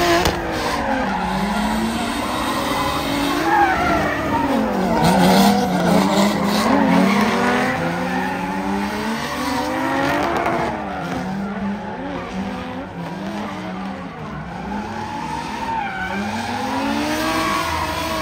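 Drift cars sliding: engines revving up and falling back again and again, over tire squeal and skidding.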